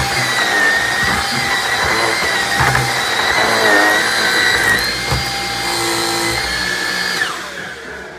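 Shark vacuum cleaner running with a steady high whine and a few short knocks, then switched off about seven seconds in, its motor whine falling in pitch as it winds down.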